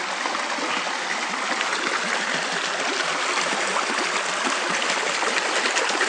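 Stream water cascading over mossy rocks in a small waterfall: a steady rushing and splashing.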